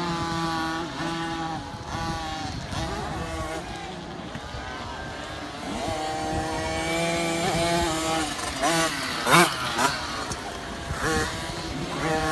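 Several 50cc two-stroke motocross bikes racing on a dirt track, their engines revving up and down as they go through the gears. About nine seconds in, one bike revs sharply up, the loudest moment.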